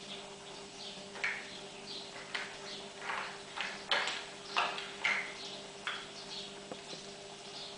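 A palette knife scraping thick paint across a canvas in a string of short, irregular strokes, busiest around the middle, over a faint steady hum.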